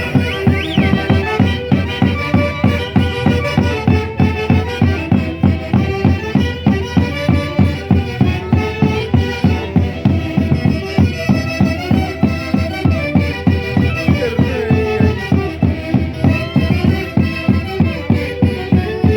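Andean folk orchestra playing lively dance music, with sustained melody lines over a steady, driving beat.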